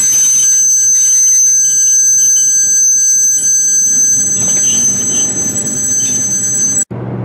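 Freight car wheels squealing against the rails as covered hopper cars roll slowly through a curve: a loud, steady, high-pitched squeal of several tones held together, over a low rumble of the train, cutting off suddenly near the end.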